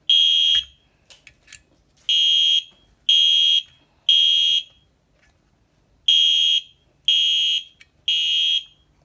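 Wheelock MIZ fire alarm horn sounding in alarm, set off from a manual pull station, in a temporal-3 pattern: groups of three high-pitched half-second blasts about a second apart, with a longer pause between groups. A few faint clicks come in the first pause.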